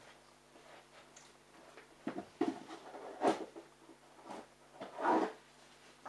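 Laundry being handled and loaded into a front-loading washing machine's drum: irregular rustles and soft knocks, the loudest about three seconds in and again about five seconds in, over a faint steady hum.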